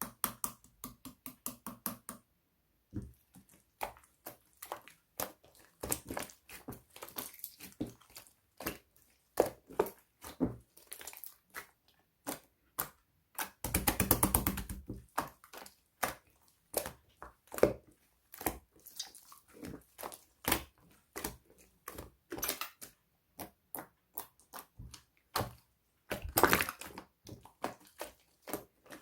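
Slime being squished and pressed by hand, giving a run of sticky clicks and small pops of trapped air. There is a denser crackling stretch about halfway through and another near the end.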